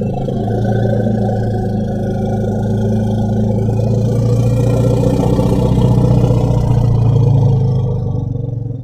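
An elephant giving one long, low, steady rumble lasting nearly ten seconds.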